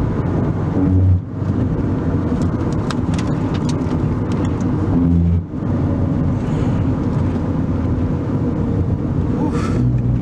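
Road and wind noise inside a moving car driving through strong dust-storm winds: a steady, loud rumble, with scattered light ticks a few seconds in.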